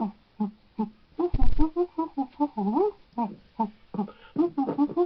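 A voice chanting a sing-song rhyme in short, clipped syllables whose pitch swoops up and down, with a dull thump about a second and a half in.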